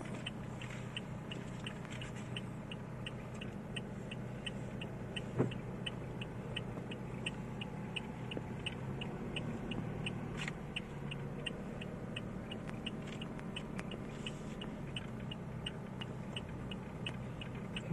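Car's turn-signal indicator ticking steadily, about two to three ticks a second, over the low, steady hum of the engine. A single knock comes about five seconds in.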